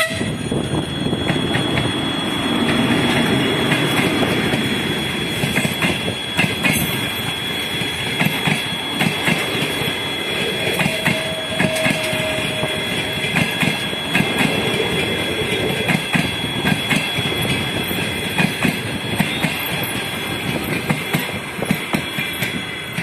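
TEP70 diesel passenger locomotive passing close by, its engine loudest in the first few seconds, followed by its train of passenger coaches rolling past at speed, the wheels clattering over the rail joints in a rapid, uneven rhythm.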